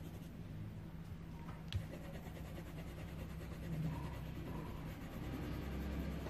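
Coloured pencil shading on paper, a soft scratchy rubbing, over a steady low hum, with one sharp click a little under two seconds in.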